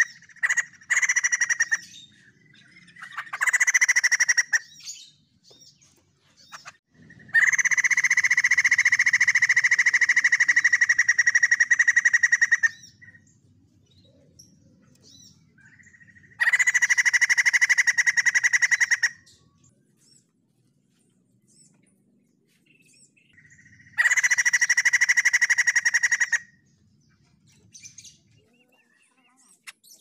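White-crested laughingthrush calling in loud bursts of fast rattling chatter, about five in all, each a couple of seconds long and the longest about five seconds, with quiet gaps between.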